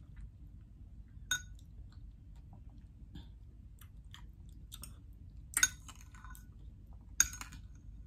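Close-up mouth sounds of a person chewing soft kiwi fruit, with faint wet ticks throughout. Three sharp metallic clinks of a metal spoon ring out briefly, about a second in, again after five seconds and near the end.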